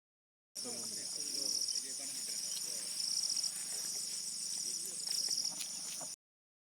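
Chorus of insects, crickets or cicadas, with a steady high-pitched shrill and three louder pulsing spells about half a second each. Faint distant voices underneath, and the sound cuts off abruptly about six seconds in.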